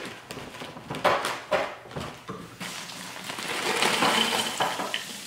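Plastic zip-top bag being pulled open and rustled, with a few sharp crackles about a second in, then chopped onions pouring out of it into a ceramic slow-cooker crock in a longer rustling slide.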